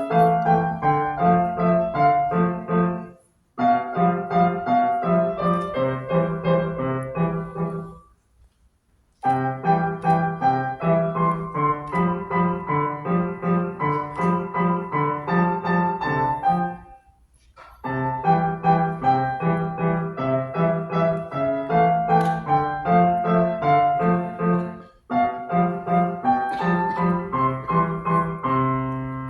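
Piano playing a lively piece in quick notes over a repeating bass figure. The playing stops briefly four times, once for about a second, and the piece ends on a held low chord.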